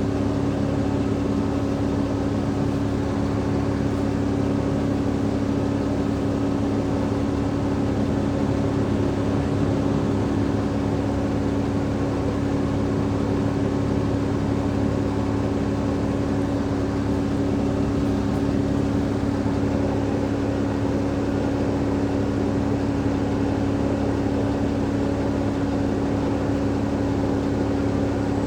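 Cummins ISL 8.9-litre diesel engine of an Alexander Dennis Enviro500 MMC double-deck bus running steadily at an even engine speed, with a constant low hum.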